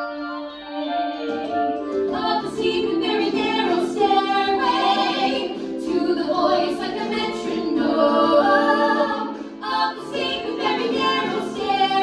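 Three women singing together in harmony through stage microphones.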